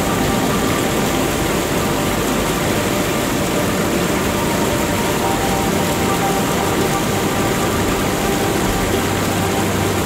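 Steady rushing-water noise, even and unbroken, with faint held tones of ambient music beneath it.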